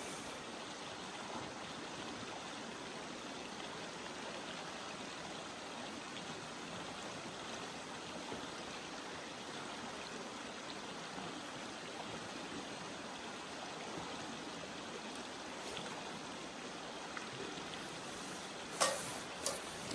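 A river stream flowing with a steady rushing sound, with a sharp knock near the end.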